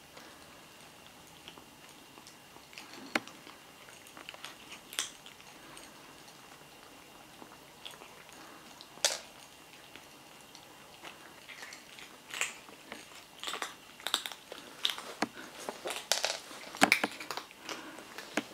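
British Shorthair kittens crunching dry kibble: irregular sharp crunches, few at first, then coming thick and fast in the last several seconds.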